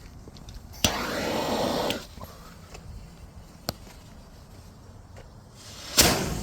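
A homemade plastic-wrap and electrical-tape pressure device going off weakly: a sudden pop about a second in, then about a second of hissing rush as it vents smoke without building much pressure. Near the end comes a second, louder short burst of rushing noise.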